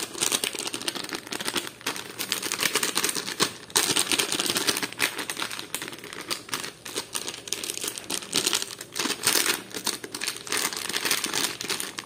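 Plastic packet of grated cheese crinkling as it is shaken over a tray of bread: a rapid, irregular crackle that runs on without a break.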